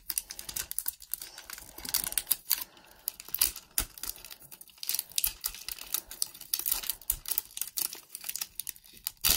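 Plastic shrink-wrap being peeled and torn off a ball-shaped plastic toy capsule by hand, crinkling and crackling in quick irregular crackles.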